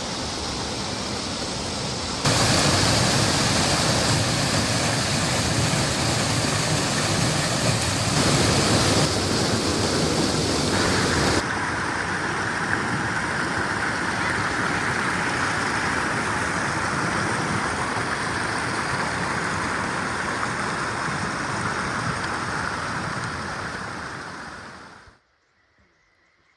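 Waterfall: steady rushing of falling water. The sound jumps louder about two seconds in, turns brighter around eleven seconds, and dies away shortly before the end.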